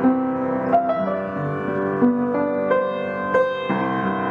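Background music: a slow piano melody of held notes, a new note or chord coming every half second to a second.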